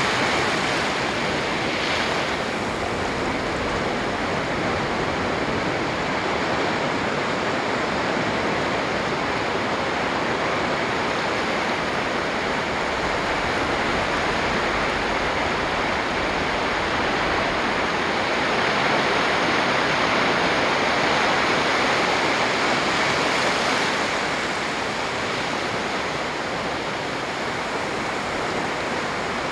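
Sea surf breaking on a beach: a continuous rush of waves that swells for a few seconds past the middle and then eases.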